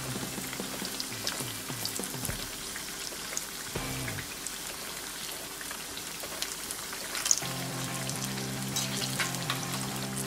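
Gram-flour-battered potato slices (aloo pakoras) deep-frying in hot oil: a steady crackling sizzle with many small sharp pops, one louder click about seven seconds in.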